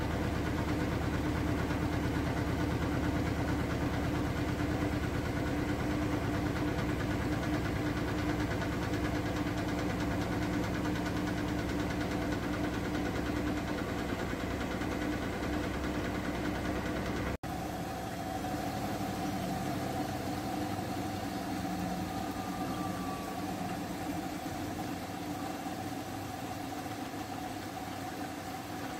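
Siemens WM14Q363NL front-loading washing machine spinning its drum at speed, a steady mechanical hum. A little over halfway through it cuts abruptly to the drum tumbling a wash load through water, with a different, slightly higher steady motor tone.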